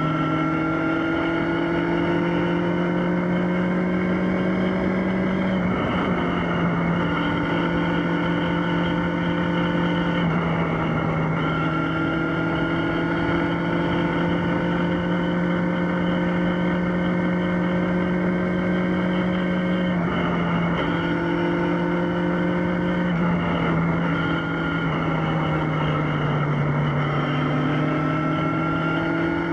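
Yamaha XJ6's 600 cc inline-four engine running under way at a steady level. Its pitch climbs slowly, then dips briefly and climbs again several times. A steady rush of noise sits underneath.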